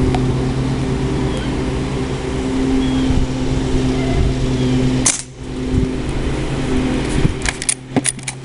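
Umarex Legends Cowboy lever-action CO2 BB rifle firing one shot about five seconds in, then a quick run of sharp clicks near the end as the lever is worked, ejecting the shell and chambering the next BB. A steady engine hum runs underneath.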